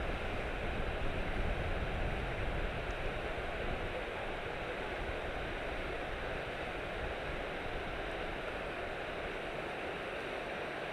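Steady rushing outdoor noise of wind and water, a little louder over the first four seconds.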